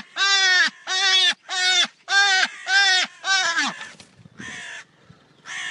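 An animal calling over and over in loud, evenly spaced cries, each about half a second long and falling in pitch at the end. The calls grow fainter and more spaced out over the last couple of seconds.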